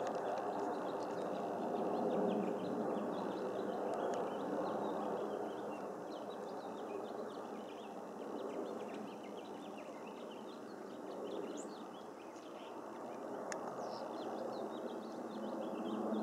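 Jet engine noise from a KC-10 tanker flying over on approach, a steady rushing rumble that eases off past the middle and builds again near the end. Small birds chirp over it.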